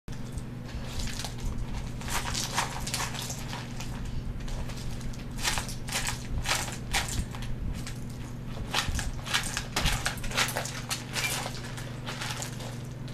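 In-shell nuts clattering and rattling in a plastic bowl and spilling onto cloth as a Catalina macaw digs through them with its beak and flings them out, in irregular flurries over a steady low hum.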